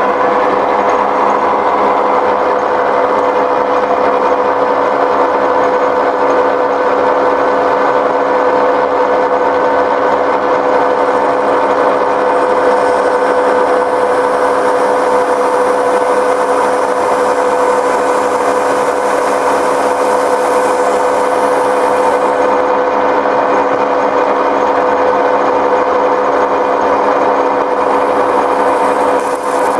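Metal lathe running steadily in a high gear, its gear train giving a steady whine, while a cutting tool turns a polyurethane bushing. A hiss from the cut comes in for several seconds in the middle and again near the end.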